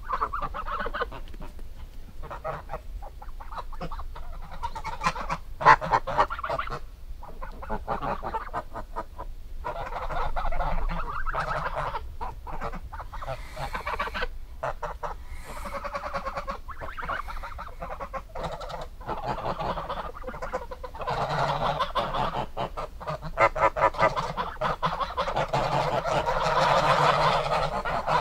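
Geese honking over and over, call after call, growing louder and denser in the last several seconds.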